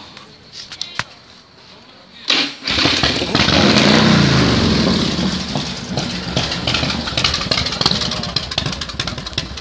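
Big Dog custom motorcycle's V-twin engine started on the starter about two seconds in. It catches at once, the revs rise and fall with a blip of the throttle, and it settles into an uneven idle.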